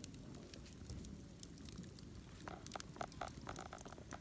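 Wood campfire crackling faintly, with scattered small pops and snaps that come thicker in the second half.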